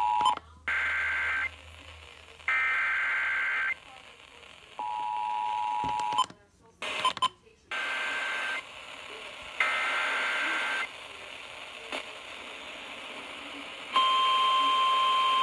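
Emergency Alert System tones from weather radio. A steady two-note attention tone cuts off, followed by short buzzy bursts of the digital alert header, a second brief two-note tone and two more bursts with some clicks and dropouts between. About 14 seconds in, the single steady NOAA Weather Radio warning alarm tone starts.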